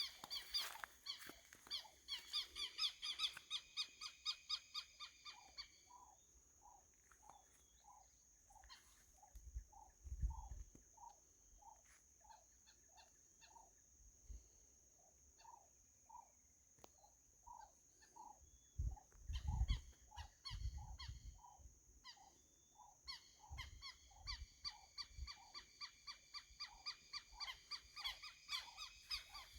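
Birds calling. A fast, high, repeated call at the start and again near the end frames a long, evenly paced series of lower toots, about two a second. A steady high-pitched hum runs underneath.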